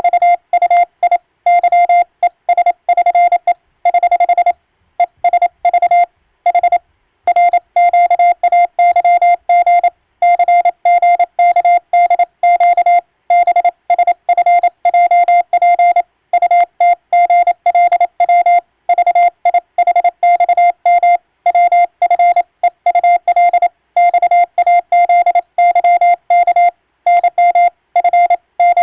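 Morse code sent on an electronic keyer: a single mid-pitched beep tone switched on and off in quick dots and dashes, with short pauses between words. It is the text of an English-language radiotelegram being sent.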